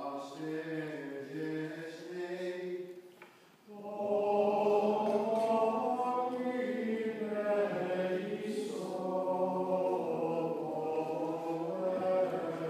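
Church choir singing plainchant at the opening of a High Mass. A thinner line of voice is heard first; then, after a short break, fuller and louder singing begins about four seconds in and carries on.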